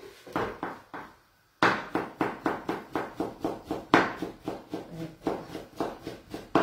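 Hand-cranked food mill (passaverdure) being turned over a pot of cooked greens: a few strokes, then from about a second and a half in a fast, even run of scraping knocks, about three or four a second. The mill is labouring with the fibrous greens.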